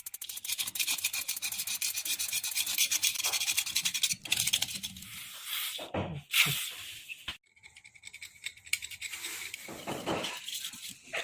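Rapid back-and-forth scrubbing strokes on a hard surface, then a few sharp knocks around the middle and lighter, intermittent scratching.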